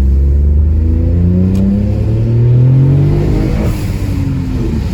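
Turbocharged three-cylinder 1.0 EcoBoost engine of a Stage 2-remapped Ford Focus pulling hard under acceleration. Its revs climb steadily for about three seconds, then drop sharply about three and a half seconds in.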